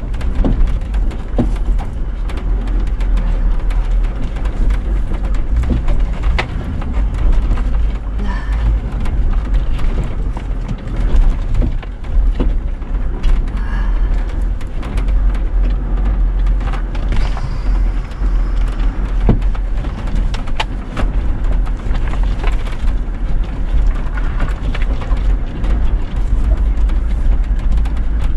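Off-road vehicle driving slowly along a rough, rutted dirt track: steady low engine and tyre noise, with frequent short knocks and rattles as the vehicle rides over the ruts.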